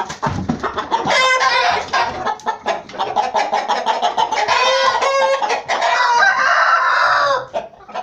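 Aseel (Hint horozu) roosters crowing and clucking in a coop, with several drawn-out crows, the longest near the end. Short knocks of the wooden cage are heard in the first few seconds as a rooster is taken out by hand.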